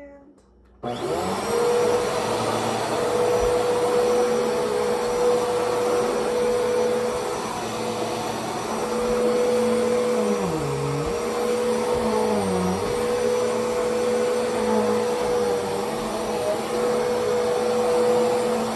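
Household vacuum cleaner switched on about a second in, then running steadily with a high motor whine. Its pitch sags briefly twice in the second half.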